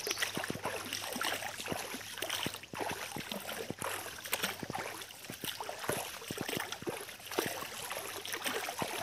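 Footsteps and brushing through dry forest undergrowth: a dense run of irregular crackles and snaps.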